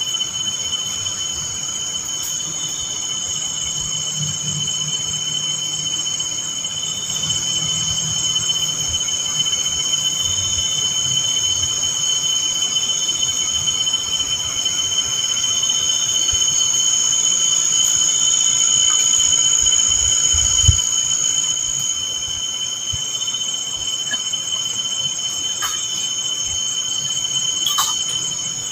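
Chorus of night insects: several steady, high-pitched trills at different pitches sounding together, with a few faint clicks near the end.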